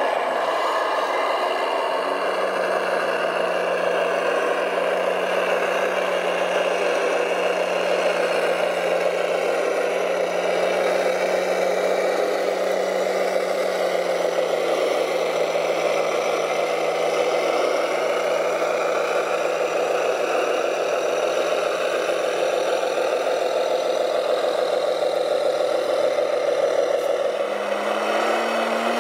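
Radio-controlled 1:14 model dump trucks, including a Tamiya Ford Aeromax 6x6, running through heavy mud with a steady engine-like drone. The pitch rises a little near the end.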